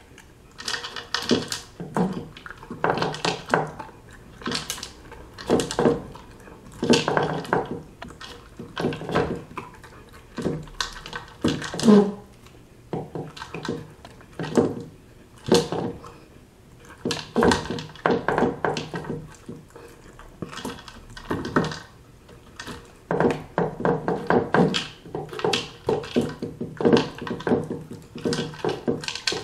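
A Weimaraner eating dry dog food from a plastic bowl with a large slow-feeder ball in it: repeated knocks and clatter as the ball and kibble are pushed about against the bowl, in irregular bursts about once a second.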